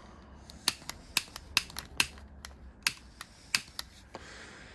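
About a dozen sharp, irregular clicks of a lighter being struck to relight the locomotive's burner, with a soft hiss starting near the end.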